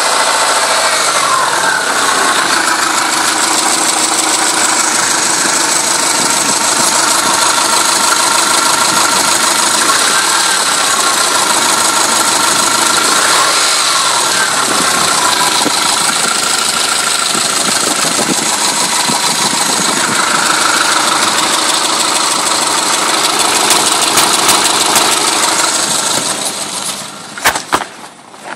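Subaru Legacy boxer engine idling warm with a knock, its idle speed wandering up and down now and then, with the idle air control valve presumed faulty. Near the end the engine sound drops away and a few sharp clicks follow.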